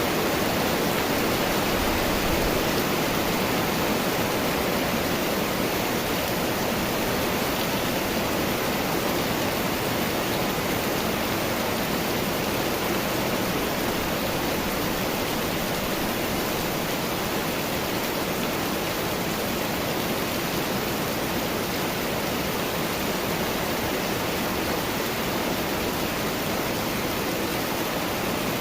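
Steady rain falling, an even, dense hiss with no breaks.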